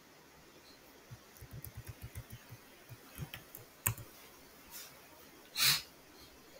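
Computer keyboard typing: a quick run of light key clicks, then a few scattered keystrokes and a sharper click, with a brief louder burst of noise near the end.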